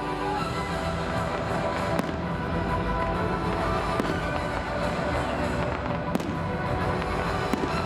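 Fireworks display: about four sharp bangs from bursting shells, roughly every two seconds, over steadily playing music.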